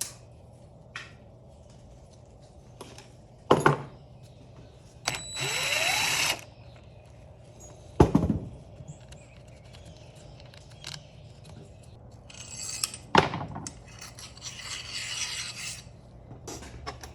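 Workshop tool and parts handling during a dirt bike teardown: three sharp clanks of metal being knocked or set down, a short harsh rasping noise with a rising whine about five seconds in, and softer scraping and rustling near the end.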